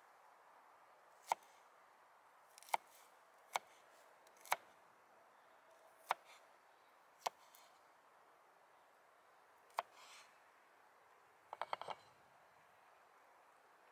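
Knife slicing garlic cloves on a wooden cutting board: single sharp taps of the blade on the board about a second or so apart, then a quick run of taps near the end.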